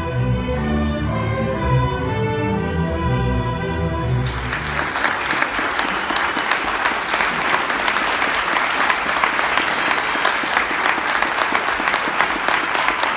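Student string orchestra of violins, cellos and double bass playing the last bars of a piece, which ends about four seconds in. Audience applause follows at once and carries on steadily.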